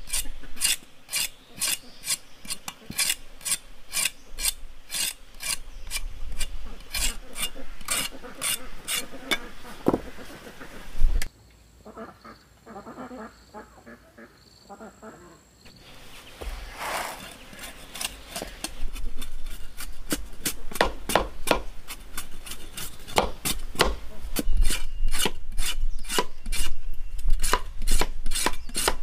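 A large knife blade scraping the skin off cassava roots in quick, repeated rasping strokes, about two or three a second. The strokes stop for a few seconds in the middle, leaving only faint high thin tones, and then start again.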